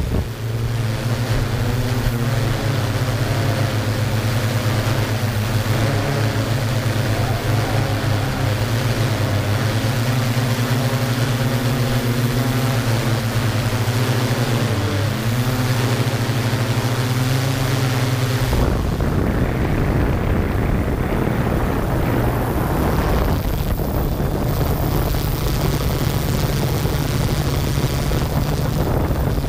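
Yuneec Q500 quadcopter's motors and propellers humming steadily in flight, heard from the camera on board, with wind rushing on the microphone. About two-thirds of the way through the hum shifts in pitch and the wind noise grows louder.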